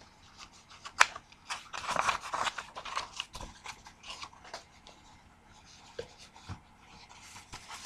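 Pages of a picture book being turned and handled close to the microphone: a sharp tap about a second in, then a couple of seconds of paper rustling, then a few light clicks and taps.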